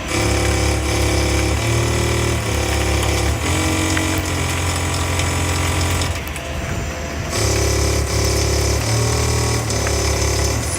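A CNC machine's stepper motors buzzing out a melody, each note a steady pitched hum that jumps to a new pitch every second or so, with a brief break about six seconds in.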